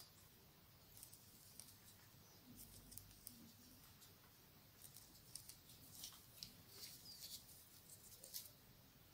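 Faint clicks and rustles of a crochet hook working cotton yarn in single crochet stitches, scattered and more frequent in the second half, over near silence.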